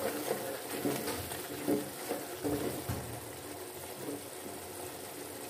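Thin yogurt and tomato masala gravy bubbling in a steel pot, with a few soft knocks in the first three seconds.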